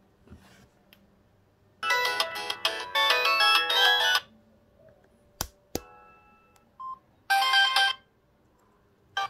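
Samsung SGH-T349 phone's built-in ringtones playing from its speaker in short separate snippets: a melodic ringtone of about two and a half seconds, two sharp clicks, a short beep, then another brief ringtone of under a second.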